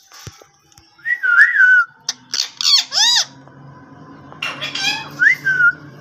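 Indian ringneck parrot whistling and calling: a warbling whistle about a second in, a quick run of sharp calls around two to three seconds, then a harsher call and a short whistle that rises and falls near the end.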